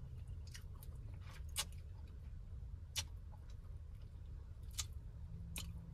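Close-up eating sounds: scattered sharp mouth clicks and lip smacks, about eight in six seconds, while eating seafood boil, over a low steady hum.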